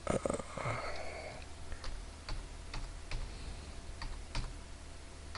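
Computer keyboard keys pressed as a run of about six separate sharp clicks: repeated Ctrl+Z undo keystrokes. A brief, louder sound comes just before them, at the start.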